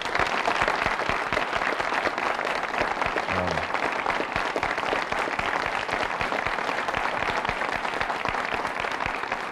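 Studio audience applauding steadily: a dense, even patter of many hands clapping.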